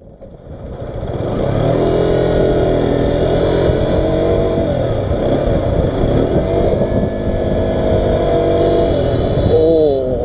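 A bus horn sounding in long, sustained blasts, broken briefly about halfway through, over the low running of a motorcycle engine.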